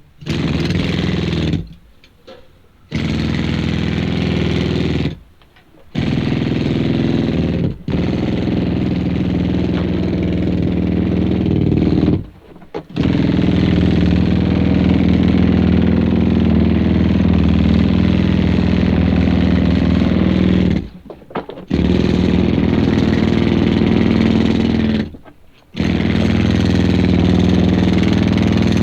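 Pneumatic coal drill (a mining air drill) running loud and steady in runs of one to eight seconds. It stops and restarts five times, with pauses of about a second between runs.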